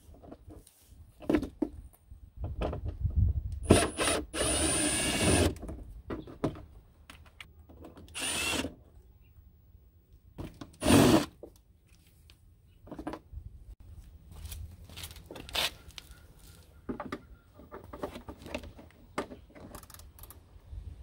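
A cordless power driver runs in a few short bursts, backing out bolts, the longest run lasting about a second and a half. Clicks and knocks of tools and parts being handled come between the runs.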